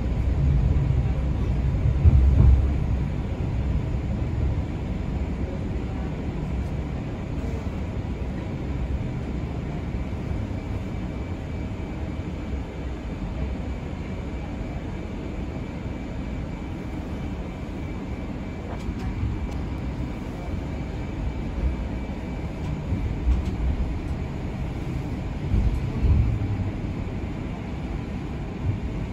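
Electric streetcar running, heard from inside the car: a steady low rumble of wheels on the rails with a faint steady whine. There are louder jolts about two seconds in and again toward the end.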